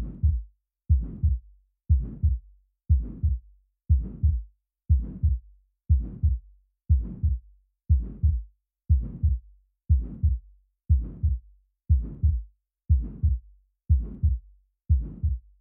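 Heart sounds with the murmur of aortic stenosis, a systolic ejection murmur, as heard at the chest: a steady beat of about one a second, each beat a low thud followed by a harsh, fading whoosh.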